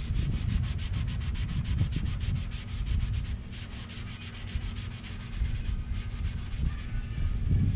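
A pad loaded with cutting polishing compound is scrubbed back and forth over the painted steel fender of a 1970 Buick Skylark in quick, even strokes, about five a second. It briefly pauses twice, over a low rumble. The compound is cutting off scuff marks and paint transferred from another surface.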